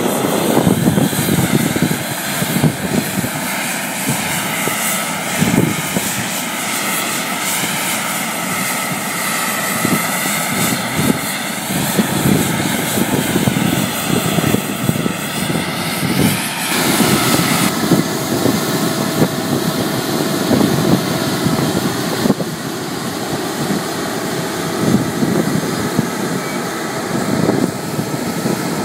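Loud, steady aircraft turbine noise on an airport apron: a whine with tones that waver up and down over a continuous rumble. About seventeen seconds in, the whine shifts and settles into a steadier tone.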